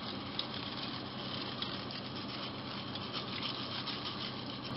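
Broth at the boil in a wide paella pan over a high gas flame: a steady, even bubbling hiss as fine fideuá noodles are poured into it.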